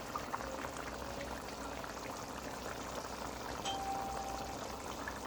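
Pot of lamb curry simmering on the stove, a steady bubbling with small pops.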